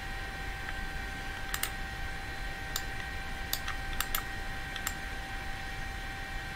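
Computer mouse clicking: about six short, sharp clicks at irregular spacing, two of them close together around the middle. Under them, a steady high whine and hiss.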